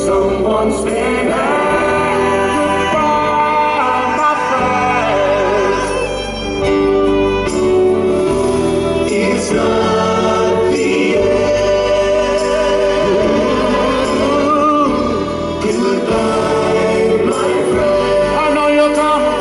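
Live pop music: a male vocal harmony group singing sustained chords with band backing, heard from the front of a concert hall.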